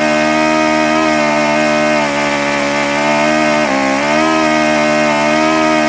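A small Toyan model engine running steadily at a fast idle. About three and a half seconds in, its note sags briefly and then picks back up. The owner cannot get this engine to run properly and blames its small pump-style carburetor.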